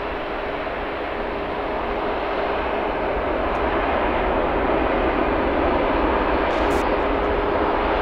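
Boeing 737 MAX 8's CFM LEAP-1B jet engines at taxi power: steady engine noise with one held tone, growing gradually louder as the airliner taxis past.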